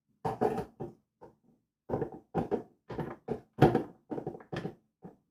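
A serving utensil knocking and scraping against cookware as cauliflower rice with chicken is scooped out onto a plate: about a dozen short clatters in quick clusters.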